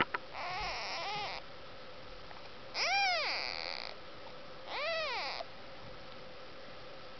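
Newborn kittens mewing: several thin, high cries, each rising and then falling in pitch, the loudest about three seconds in.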